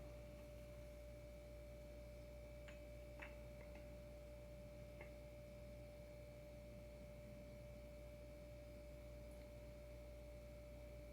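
Near silence: room tone with a steady faint high-pitched hum and a few faint small clicks.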